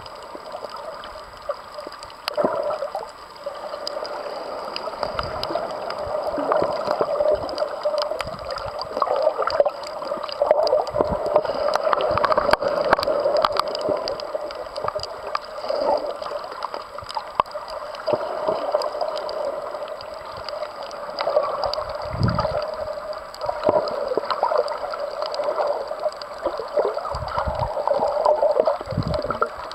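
Muffled water noise heard from a camera filming underwater: steady gurgling and sloshing with many scattered small clicks, and a few brief low rumbles near the end.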